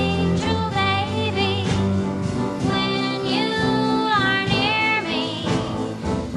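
Early-1960s doo-wop ballad: a teenage girl's high lead vocal, wavering with vibrato and sliding between held notes, over a slow band backing.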